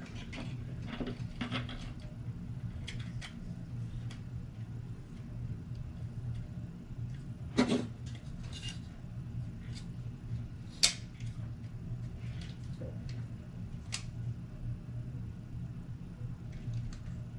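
Scattered clicks and knocks of small parts of a Jeep Cherokee selector switch being handled and tried in place, the two loudest about eight and eleven seconds in, over a steady low hum.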